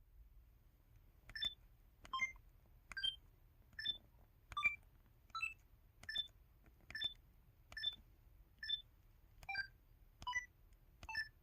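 KTF-TR2000 mobile phone keypad button tones from its 'One Two Three' sound theme: a steady series of about a dozen short electronic beeps, roughly one every 0.8 s, each key press with its own pitch.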